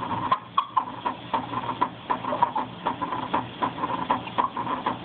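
Recorded mitral stenosis heart sound played through a speaker: a quick, uneven run of heartbeat thumps and clicks over a steady low hum.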